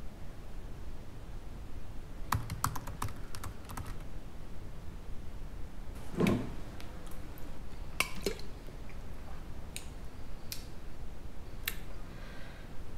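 Rapid clicking of typing on a laptop keyboard for about two seconds. A duller knock follows about six seconds in, then a few scattered single clicks and taps of things handled on a desk.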